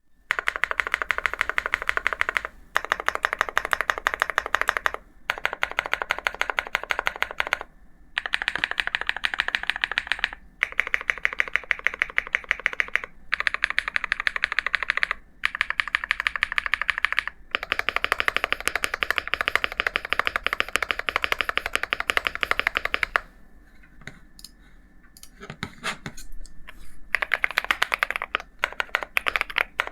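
Fast typing on an Akko MonsGeek M1 mechanical keyboard fitted with MMD Princess switches: rapid keystroke clacks in runs of two to three seconds, broken by short pauses. About three-quarters of the way through there is a lull with only a few scattered key presses before fast typing resumes.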